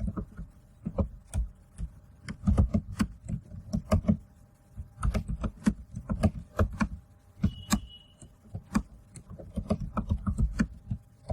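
Typing on a computer keyboard: a run of irregular key clicks and thuds. One short high beep sounds about two-thirds of the way through.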